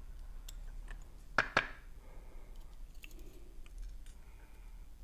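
Small metallic clicks and faint tapping as lock pins and springs are handled and taken out of a pin-tumbler lock during disassembly, with two sharp clicks close together about a second and a half in.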